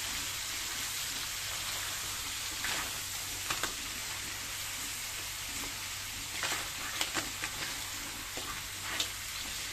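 Mud crabs sizzling steadily as they are stir-fried in an aluminium wok, with a wooden spatula now and then clacking against the shells and the pan as they are turned.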